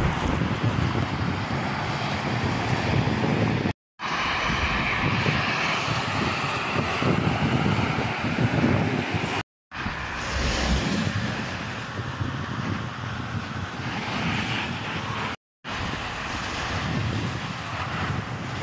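Highway traffic noise from heavy trucks: steady tyre and engine noise that swells slightly about halfway through. It drops out abruptly for a split second three times.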